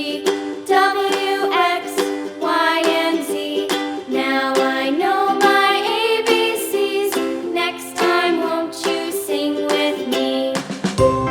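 Background music: a bright, upbeat plucked-string tune with many short picked notes, and a low bass coming in near the end.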